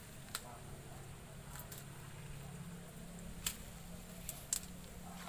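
Water spinach stems snapping as they are broken off by hand, about six short, sharp snaps over a steady low hum.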